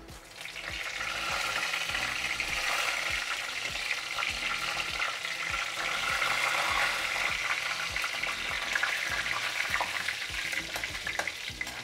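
Fresh curry leaves sizzling and spitting in hot oil with crackling mustard and cumin seeds in a steel kadhai: the sizzle swells up within the first second and stays loud. Near the end a slotted spoon stirs through the pan.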